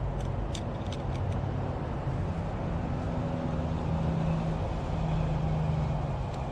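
Steady low hum of a motor vehicle engine, with a few light clicks in the first second or so.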